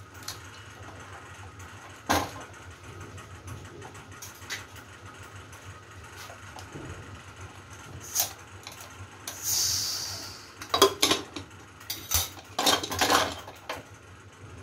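Aluminium pressure cooker being opened: a few metal clicks, then a hiss of about a second as the whistle weight is lifted and the leftover steam escapes, then a run of sharp metal clicks and clatter as the lid is twisted free and lifted off.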